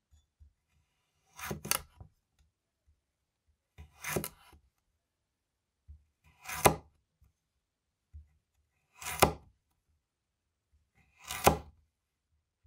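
Stainless-steel vegetable cleaver, a Winco KC-401, cutting down through raw carrot onto a wooden cutting board to make large dice. There are five slow, separate crunching cuts about two and a half seconds apart, the first a quick double stroke.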